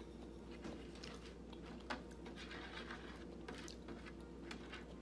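Faint chewing of food, with scattered small mouth clicks, over a steady low hum.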